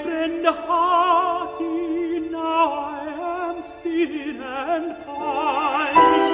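A classically trained voice singing a slow art song with wide vibrato, moving from note to note over held accompanying notes.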